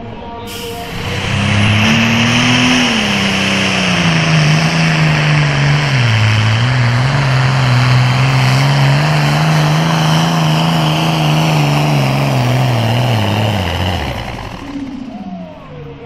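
Pulling tractor's diesel engine at full throttle, dragging a weight-transfer sled. Its pitch dips about six seconds in as the sled loads it down, holds steady, then falls and fades near the end as the pull finishes.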